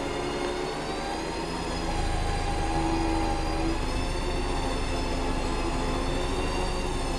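Electric winch on a Jeep Wrangler Rubicon running under load, spooling synthetic rope onto its drum as it pulls the Jeep forward, with a steady gear whine. It gets louder about two seconds in.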